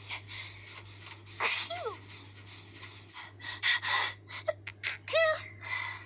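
A person sneezing: one loud sneeze about a second and a half in, then a quick run of shorter sneezing bursts and gasping breaths from about three and a half seconds on.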